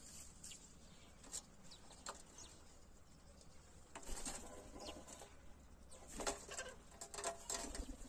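Faint scattered taps and scratches of a palm squirrel and birds feeding at a metal trough. A flutter of wings comes about four seconds in as a rufous treepie lands, and a few short calls follow near the end.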